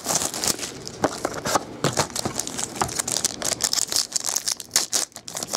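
Plastic shrink wrap crinkling as it is pulled off a box of trading cards, then a foil pack wrapper crinkling as it is torn open, in a dense run of sharp crackles.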